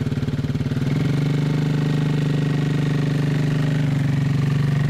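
ATV engine running with a steady pulsing beat, its revs stepping up slightly about a second in as the quad pulls away, then holding steady.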